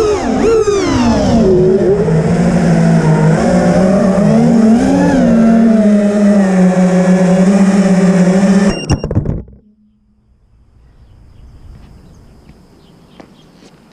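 FPV quadcopter's BrotherHobby R3 2207 2550kv brushless motors with 5-inch three-blade props whining, the pitch rising and falling with throttle, heard from the onboard camera. The motor sound cuts off about nine seconds in, leaving only faint clicks.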